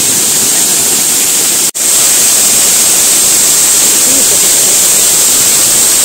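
Loud, steady rush of a waterfall's falling water and spray close to the microphone, like heavy rain, with a split-second dropout just under two seconds in.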